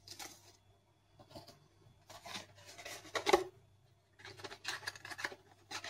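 Paper leaflets and a cardboard box insert rustling and scraping as they are handled and folded open, in irregular bursts, with a sharp tap about three seconds in, the loudest sound.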